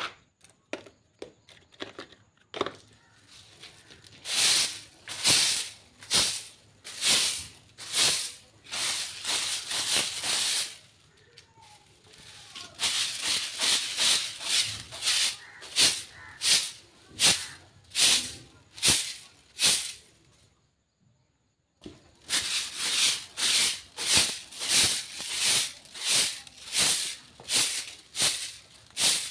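A stiff stick broom sweeping brick steps in quick, even swishes, about three strokes every two seconds. The sweeping stops briefly about twenty seconds in, then starts again.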